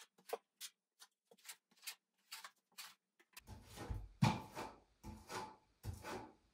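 Steel plastering trowel scraping wet multi-finish plaster across plasterboard in a quick run of short strokes. The strokes are faint at first and louder and fuller from about halfway through.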